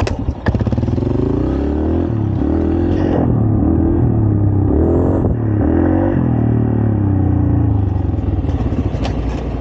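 Dirt bike engine ridden at low speed, its pitch rising and falling again and again as the throttle is opened and eased off.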